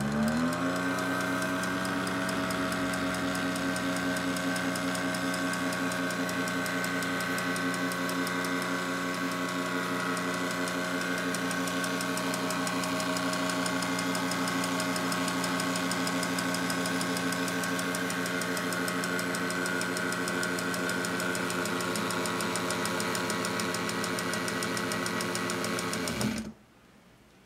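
Electric motor of a ca. 1957 Swiss-made Elna Transforma sewing machine spins up quickly and runs steadily at one speed with a rapid mechanical clatter, then stops suddenly near the end. The running is noisy, which the owner takes as a sign that the machine needs cleaning, lubrication and adjustment, and maybe repair.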